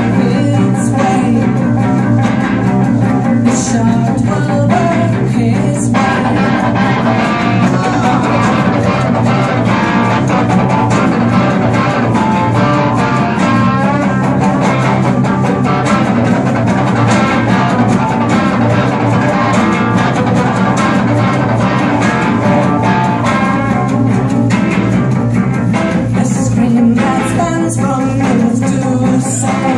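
Live rock band playing: several electric guitars with a woman singing over them.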